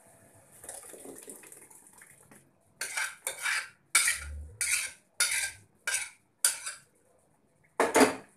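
A metal spoon clanking and scraping against a pot and a wok, about nine short, sharp strokes, as mashed spinach is scraped out into the wok. A soft low plop about four seconds in as the spinach puree drops into the pan.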